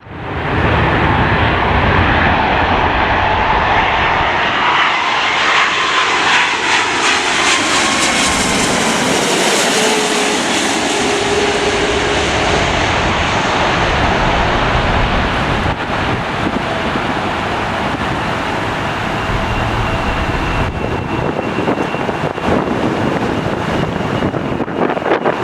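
Jet engines of a large airliner running loud and steady as it passes, a whine within the noise rising and then falling slightly in pitch.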